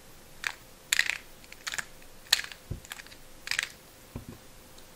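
Square-1 puzzle's plastic layers clicking as a quick sequence of layer turns and slices is done by hand: a series of short, sharp clicks, roughly two a second.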